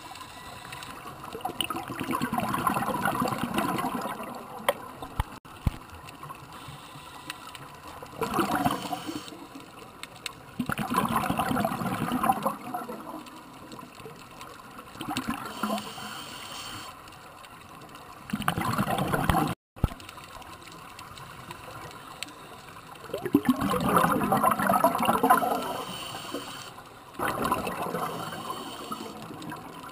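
Scuba regulator exhaust heard underwater: a bubbling rush of exhaled air every few seconds, each burst lasting one to three seconds, over a steady quieter hiss.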